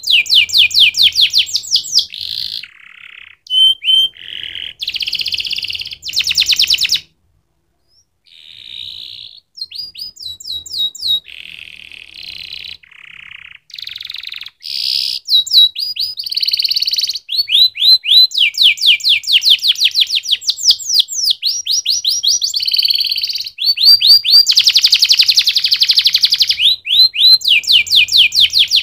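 Domestic canary singing: rolling trills of fast repeated notes and quick down-sweeping phrases, broken by a short pause about a quarter of the way in.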